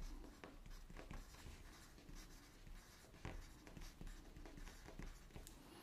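Pencil writing on a sheet of paper: faint, quick scratching strokes as a word is written out in longhand.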